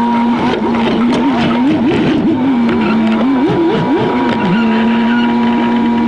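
Jeep Wrangler Rubicon engine sped up sixfold, giving a steady, high-pitched drone. From about a second and a half in until past four seconds it jumps in quick revs up and down, then settles back to a steady note.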